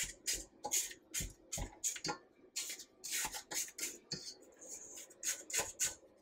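Spatula scraping down the sides of a stainless steel stand-mixer bowl of creamed butter and sugar: a series of quick scraping strokes, about two a second, with a short lull a little past the four-second mark.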